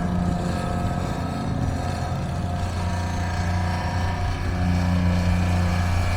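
Engine of earth-moving machinery running steadily, a little louder about two-thirds of the way through.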